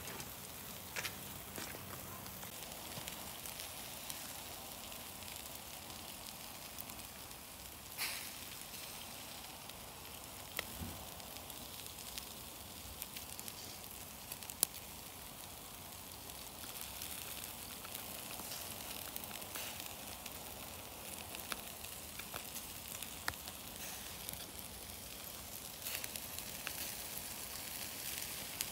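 Pork sizzling over charcoal on a kettle grill: a steady hiss with scattered sharp crackles.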